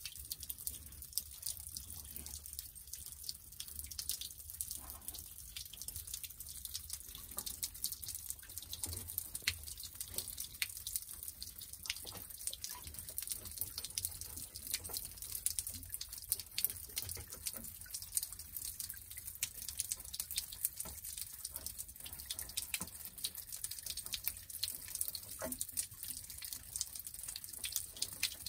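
Water trickling and dripping over sandstone rock. It makes a continuous patter of many small, irregular drips and splashes.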